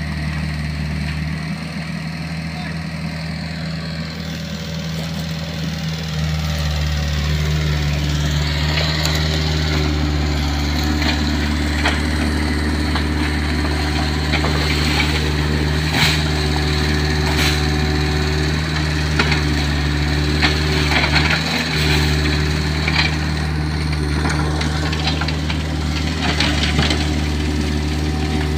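Kobelco mini excavator's diesel engine running steadily, then revving up about six seconds in as the hydraulics take the load, with a hydraulic whine. Scattered sharp knocks and cracks from the bucket working against palm trunks and soil.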